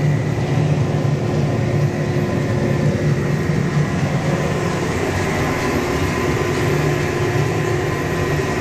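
John Deere 9230 four-wheel-drive tractor engine running steadily under load while pulling an air drill, heard from inside the cab: an even, deep drone with a few faint steady whines above it.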